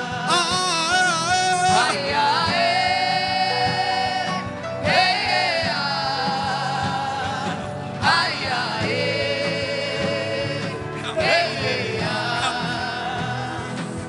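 Worship singing without clear words: a voice holds long notes with vibrato in phrases of about two to three seconds, with short breaks between them, over a steady low accompaniment.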